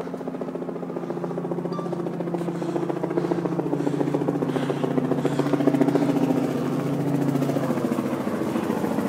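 Helicopter flying in, the rapid beat of its rotor blades over a steady engine drone, growing louder over the first six seconds as it approaches.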